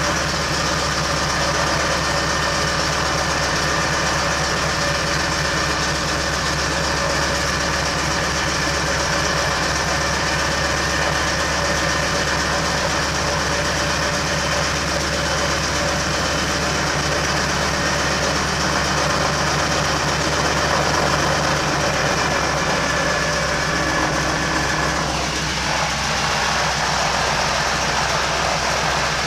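Noorduyn Norseman's radial engine and propeller running steadily at low power while the plane taxis.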